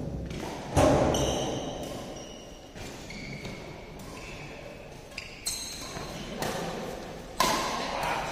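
Badminton rackets striking the shuttlecock in a rally: three hard hits, each ringing out in the echo of a large indoor hall, with lighter strokes between them and short high squeaks of court shoes on the synthetic floor.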